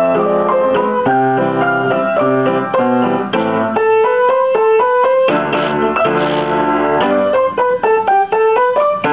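Piano played four hands as a duet: a simple melody in steady, evenly paced notes over a chordal accompaniment, with a longer held chord a little past halfway.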